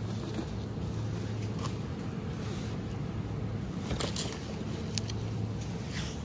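Steady low hum of shop background noise, with a few short rustles and knocks as cardboard boxes and plastic-wrapped items are handled, around four seconds in and again near the end.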